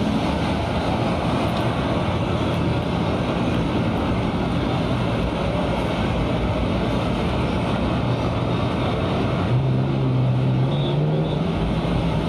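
A motor vehicle engine running under a steady rushing noise; the engine note rises about ten seconds in and holds there.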